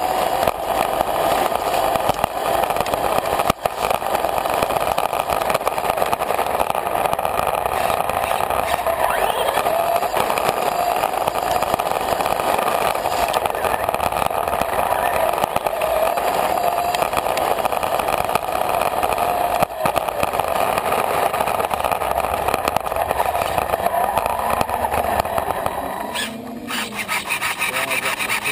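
RC car's motor whining and its tyres grinding over rough, gritty pavement, heard from on board, the whine wavering up and down with speed. About 26 seconds in the car slows and the running sound falls away.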